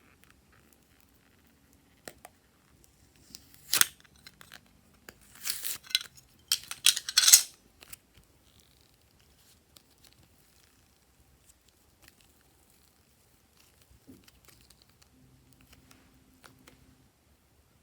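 Glossy slime being pressed and pulled by hand, giving sticky crackling and tearing sounds in a few short bursts between about four and eight seconds in, then only faint small sounds.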